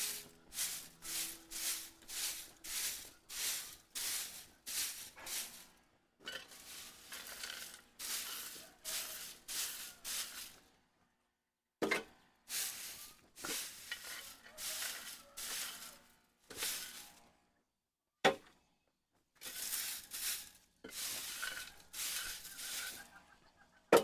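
Rhythmic back-and-forth rasping strokes, about two a second, in runs broken by short pauses, with a sharp knock twice.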